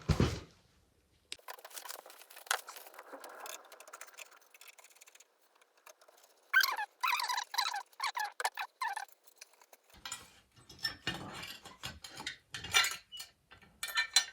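Hand work on a wood stove's glass door: scraping, crackling and a run of clicks and knocks of metal and glass as the broken heat-resistant glass is unscrewed and taken out.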